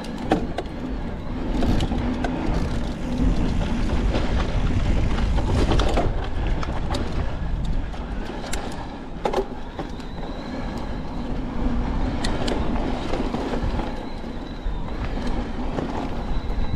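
Electric mountain bike being ridden along a dirt trail: a steady rumble of tyres and wind on the microphone, with scattered sharp clicks and rattles from the bike over rough ground.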